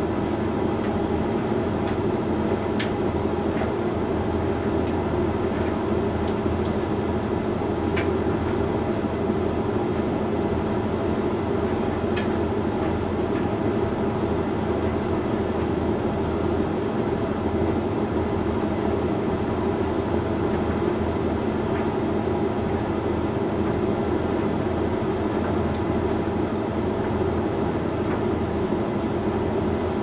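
Hoover Link X Care HLX C10DRGR condenser tumble dryer running steadily in the last minutes of a Rapid 45 drying cycle: a constant drum-and-fan hum with a few light clicks scattered through it.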